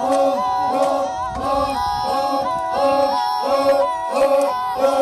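Group of voices chanting a rhythmic song with yodel-like calls, the same short phrase repeating about twice a second over steady held notes.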